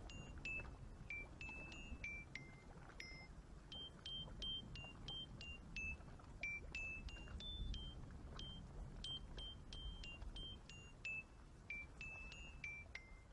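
Quiet end-credits music: a light melody of short high notes, about three a second, stepping up and down in pitch over a faint low rumble.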